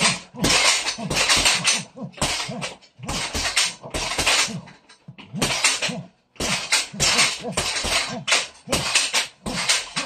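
Gloved punches landing on a heavy punching bag in fast flurries, with forceful grunting exhalations on the strikes. There are brief pauses about three and six seconds in.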